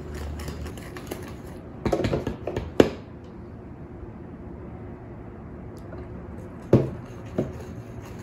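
Metal spoon stirring and scraping a thick powdered-sugar and cocoa glaze in a stainless steel bowl, with a few sharp clinks of the spoon against the bowl. The loudest clink comes about three seconds in and another near seven seconds.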